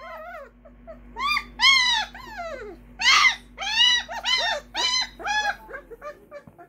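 A 20-day-old Great Dane puppy whining and squealing: a quick series of high cries that rise and fall in pitch, ending about six seconds in. They are the cries of an upset pup that the owner then soothes.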